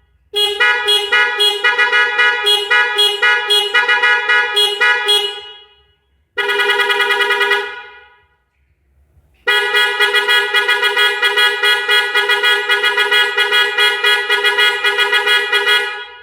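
Car horn driven by a 10-melody horn module, playing tunes as quick runs of short horn notes. It plays in three spells: a long one, a short one about six seconds in, and another long one from about nine seconds in. Each spell trails off when it stops.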